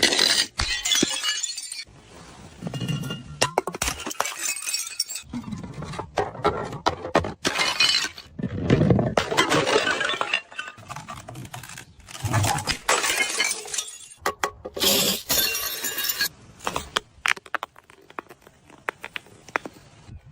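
Glass bottles shattering and their shards crunching and clinking, in a series of separate smashes.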